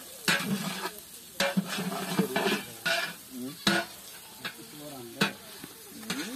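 A long metal ladle stirring and scraping through ivy gourd fry in a large metal cooking pot, about ten irregular scrapes, with the vegetables sizzling in oil between strokes.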